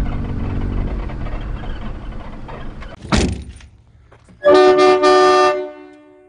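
Mini truck engine running low and dying away, then a single thunk. About four and a half seconds in comes a loud vehicle horn blast, about a second long, several tones sounding together, with its lower tones hanging on faintly after it cuts.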